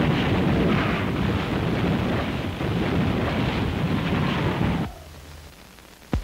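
Film storm sound effect: heavy rain with a deep rumble of thunder, loud and steady, cutting off abruptly about five seconds in to a faint hiss, followed by a single sharp knock near the end.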